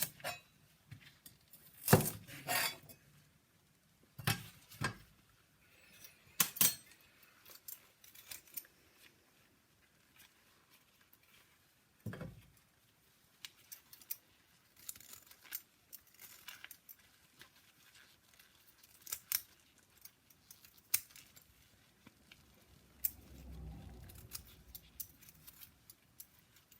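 Knife work on vegetables at a kitchen counter: scattered sharp clicks and knocks of the knife and utensils, louder and closer together in the first few seconds, with a soft low patch of handling noise near the end.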